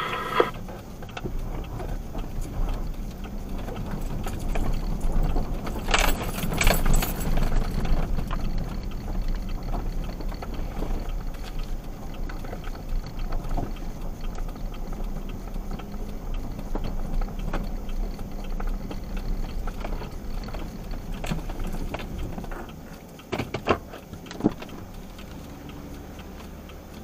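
A vehicle's engine running, heard from inside the cab, with a faint jangling rattle of keys or loose gear. The low rumble drops about 23 seconds in, followed by two sharp knocks.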